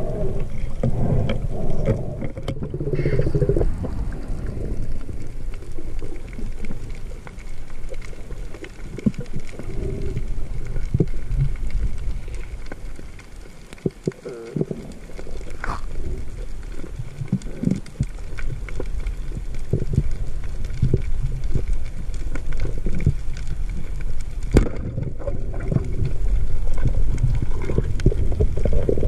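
Muffled rumble of moving water heard through a submerged camera, with many short sharp clicks scattered through it.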